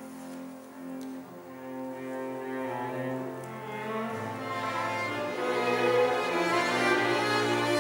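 Contemporary classical music played by a string orchestra. Violins and cellos bow held chords; a lower line joins about four seconds in, and the music swells to become much louder.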